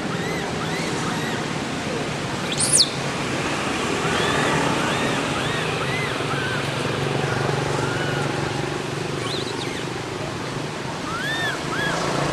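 Many short calls that rise and fall in pitch, several overlapping at different pitches, over a steady outdoor hiss, with one sharp rising whistle a little under three seconds in.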